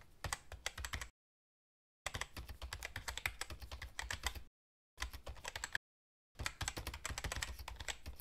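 Computer keyboard typing in quick runs of clicks, broken three times by short pauses of complete silence, about a second in, past the middle, and again shortly after.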